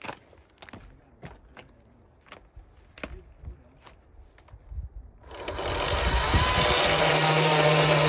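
Light knocks and steps on logs, then about five seconds in a chainsaw comes up to speed and runs loudly and steadily as it is set to a log to cut a notch.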